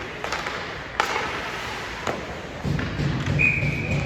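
A few sharp thuds and knocks, the loudest about a second in, then a short steady high tone near the end.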